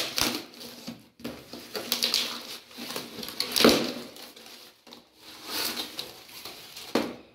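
Cardboard packaging and tape being torn by hand off a kite-string spool, in about five separate rips; the loudest come at the very start and about three and a half seconds in.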